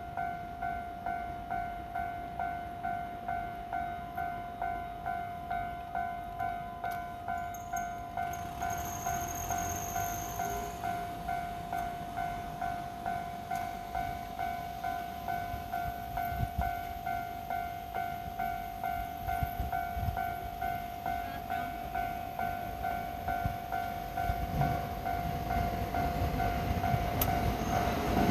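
Railway level-crossing warning bell ringing in an even, repeated beat, with the rumble of an approaching train building up near the end.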